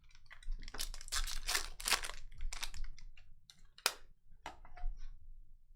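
Foil trading-card pack wrappers crinkling and tearing as packs are ripped open and cards handled, in a dense run of scratchy strokes, followed by two sharp clicks about four seconds in.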